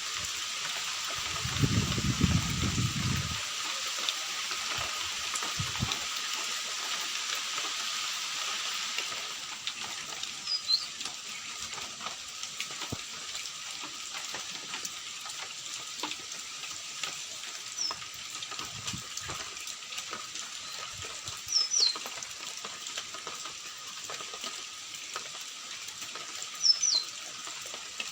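Steady rain falling, heavier for the first nine seconds or so and then lighter, with a brief low rumble about two seconds in. A bird gives short, high, falling chirps four times in the second half.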